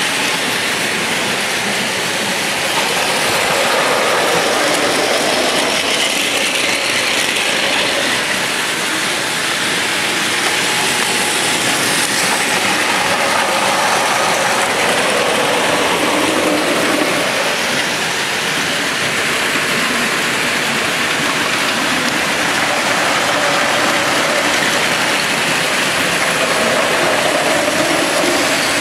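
Several battery-powered Plarail toy Shinkansen trains running at once on plastic track: a steady whirring of their small geared motors mixed with the rattle of their wheels on the plastic rails and viaducts.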